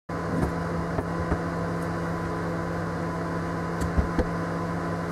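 Convection microwave oven running while it preheats: a steady hum with a few light clicks, two of them about four seconds in.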